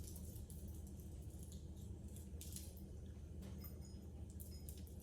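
Salt being shaken over broccoli pieces: faint, scattered light ticks every half second or so, over a steady low hum.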